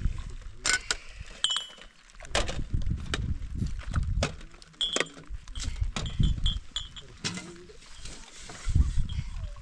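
Small glass tea cups clinking against each other and a metal tray, many short clinks, several with a brief high ring. Near the end, tea pouring from a kettle into the glasses.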